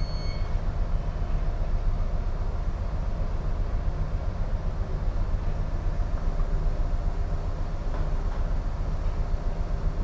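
Steady low rumble of a container ship's machinery and hull, heard on the bridge while manoeuvring. A high electronic beep from the bridge equipment cuts off about half a second in.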